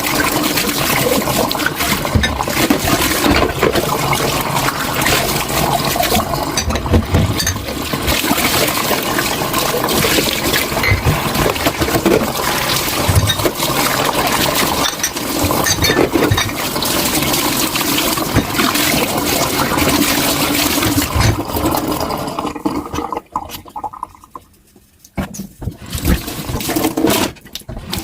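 Tap water running into a kitchen sink as dishes are washed, with scattered clinks of dishware. The water cuts off for a couple of seconds near the end, then runs again.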